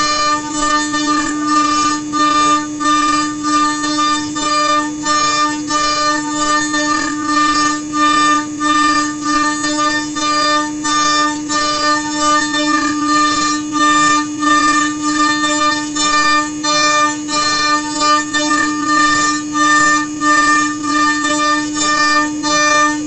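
CNC router spindle with a conical bit cutting a rotating pine blank on a rotary axis: a steady high whine, with the cutting noise swelling and dipping about once a second.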